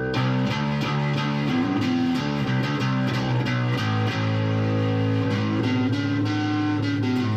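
Guitar-led music with held, changing notes over a steady beat of sharp ticks.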